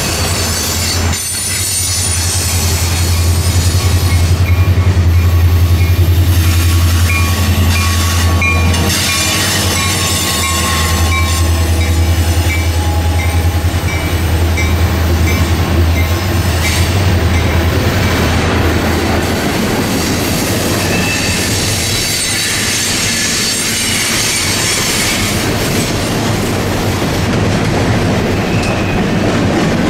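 Diesel freight locomotives pass close by with a heavy low engine drone that fades out a little past halfway. Loaded freight cars then roll past, their wheels clacking over the rail joints with occasional high squeals.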